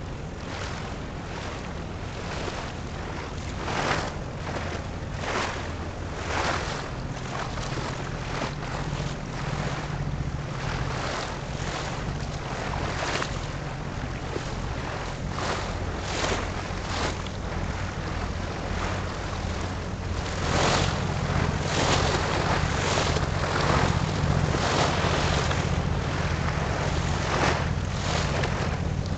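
Wind buffeting the microphone in frequent gusts over a steady low hum from a passing large cargo ship, with water noise beneath. The gusts get louder about two-thirds of the way through.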